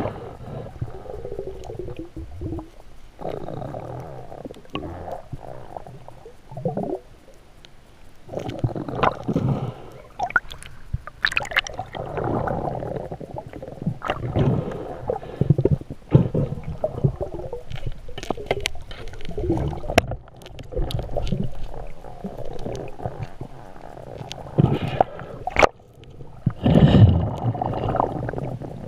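Muffled water sloshing and gurgling against a camera in a waterproof housing during a spearfishing dive, in uneven surges with scattered sharp clicks and knocks.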